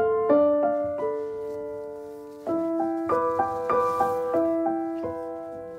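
Background piano music: a slow melody of single struck notes that ring on and fade, a new note every half second or so.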